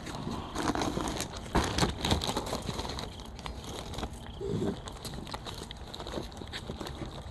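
Irregular crinkling of a plastic zip-top bag and crunching as a raccoon takes and eats cheese balls from it, busiest in the first two seconds.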